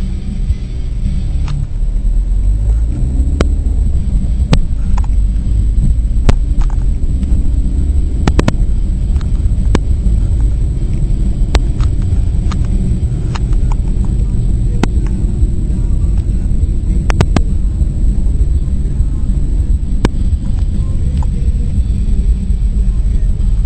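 Steady low engine and road rumble heard from inside a moving car, with a scattering of sharp clicks at irregular times.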